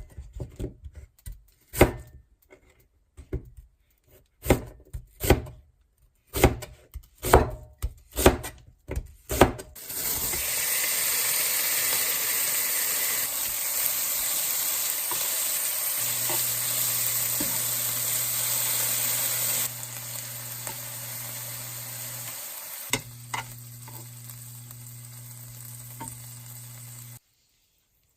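Knife strokes on a cutting board, irregular knocks about one or two a second. About ten seconds in, food starts sizzling loudly in a hot pan, and a steady low hum joins partway through.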